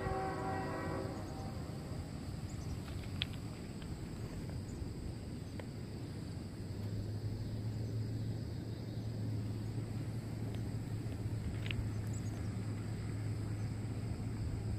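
A diesel freight locomotive's air horn sounds a chord and cuts off about a second in. Then comes steady outdoor rumble with a few faint clicks, and from about halfway a low steady hum.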